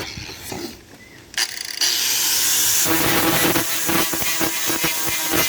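A grinder switches on about a second and a half in and grinds the steel of an old saw blade, giving a loud steady hiss. A steady motor hum joins it about halfway through.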